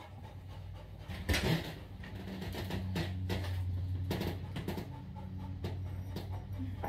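A glass door opening with a loud knock about a second in, with scattered footsteps and small knocks, then a low steady hum underneath.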